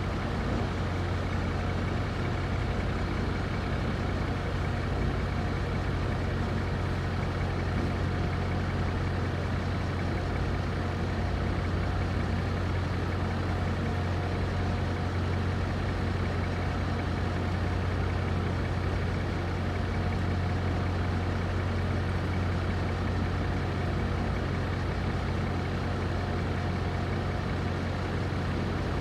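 A steady, unchanging low engine-like hum, even in loudness throughout, with no thunderclaps standing out.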